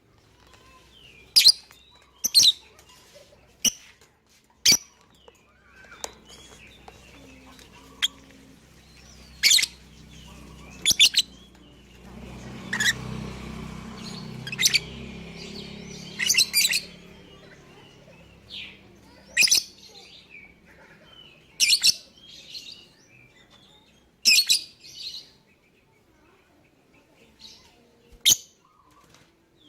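Lovebird giving short, shrill chirps one at a time, every one to three seconds at an irregular pace. This is the kind of call played as a lure to set other lovebirds calling. A faint low hum sits underneath for a few seconds in the middle.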